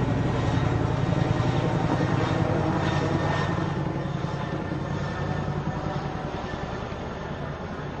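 Helicopter rotor beating in a fast, even rhythm, growing gradually fainter as it moves away.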